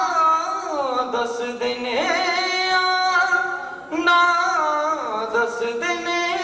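A man singing a melodic song into a handheld microphone, holding long notes that slide down in pitch, with a short breath break about four seconds in.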